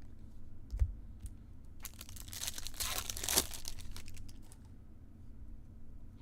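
A low thump just under a second in, then a foil trading-card pack wrapper crinkling and tearing open for about a second and a half, with small clicks of handling around it.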